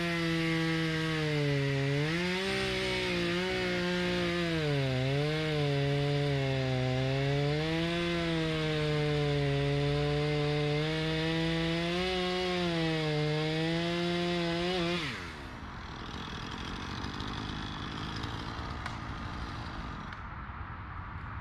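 Two-stroke chainsaw running at high revs while bucking spruce logs, its pitch dipping and recovering again and again as the chain bites into the wood. About three-quarters of the way through its note falls away quickly, leaving a quieter low hiss.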